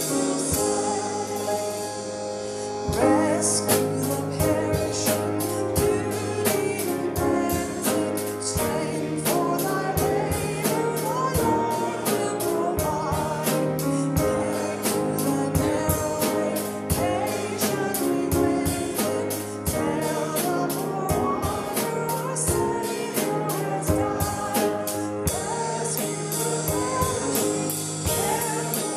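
A woman sings a hymn into a microphone over instrumental accompaniment. A steady beat comes in about three seconds in, and the music gets louder there.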